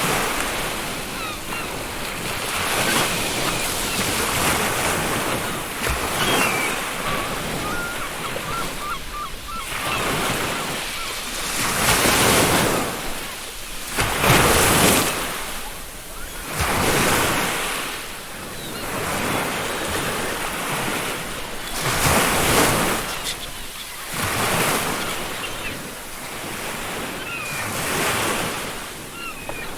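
Ocean waves breaking and washing up a beach, swelling and falling every few seconds, with faint seagull calls here and there.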